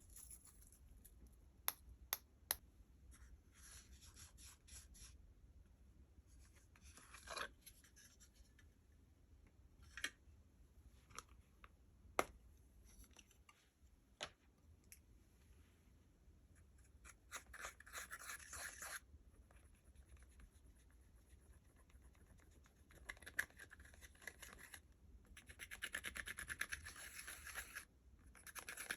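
Slime being mixed and handled, faintly: soft sticky crackling with a few sharp clicks and snaps, and two longer spells of fast, even crackling near the middle and near the end.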